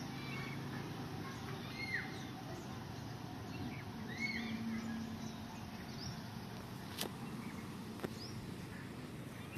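Small birds chirping in short, arching calls scattered through, over a low steady background hum, with a single sharp click about seven seconds in.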